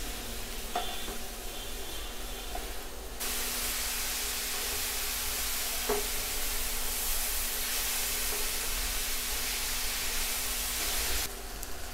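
Chopped tomatoes, onions, mint and coriander sizzling in hot oil in a frying pan as a spatula stirs them. The sizzle steps up louder about three seconds in and drops back near the end, with a single light knock around the middle.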